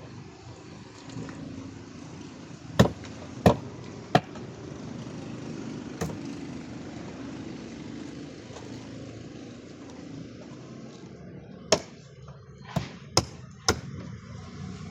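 A series of sharp, loud knocks, about eight in all in two irregular clusters, over a steady low rumble.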